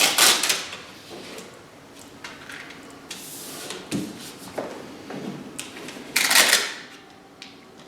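Paper mounting template, taped to the wall, rustling and scraping against it as it is shifted and pressed into place, with two louder rustles at the start and about six seconds in and small knocks between.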